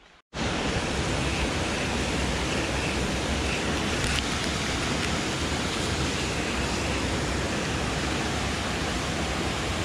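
A small stream running over stones close to the microphone: a loud, steady rush of water that starts abruptly just after a cut.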